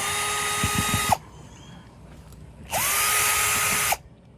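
Small electric motor of a hand power tool run in two bursts of about a second each. Each time it spins up to a steady whine and cuts off, the second burst a little louder.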